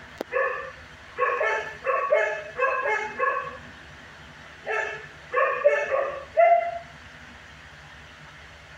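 Dog barking in two runs of short barks: several quick barks over the first three seconds or so, then a few more from about five seconds in, stopping about seven seconds in.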